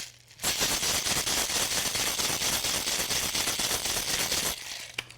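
Ice cubes rattling inside a capped cocktail shaker that is being shaken vigorously. The fast, dense clatter starts about half a second in and stops shortly before the end.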